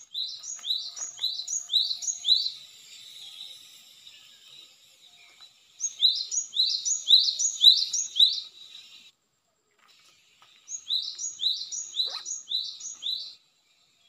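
Cinereous tit (gelatik batu) calling in three phrases, each a quick run of about seven high rising-and-falling whistled notes at roughly three notes a second, with short pauses between phrases.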